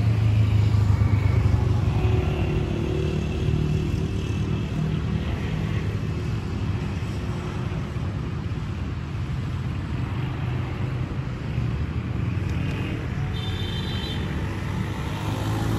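Low, steady rumble of road traffic, a little louder in the first couple of seconds.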